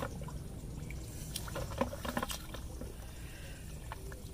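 Bare feet wading in shallow, muddy floodwater among grass: small splashes and sloshes, several in quick succession about one to two and a half seconds in.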